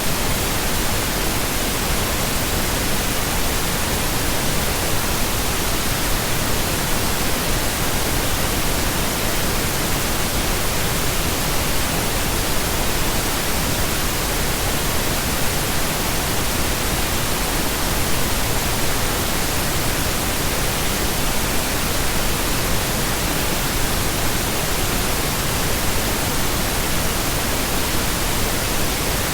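Steady, even pink noise: a continuous hiss with no changes, voices or music.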